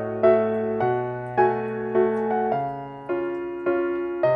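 Background music: soft electric piano chords, a new chord struck about every half second or so in a steady, gentle rhythm.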